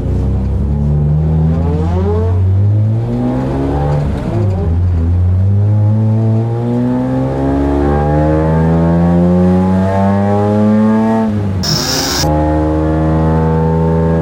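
BMW E34 M5's S38B36 3.6-litre straight-six at high revs. Its pitch rises and falls for the first few seconds, then climbs steadily for about seven seconds. Near the end it drops sharply with a short hissing burst, then holds a steady note.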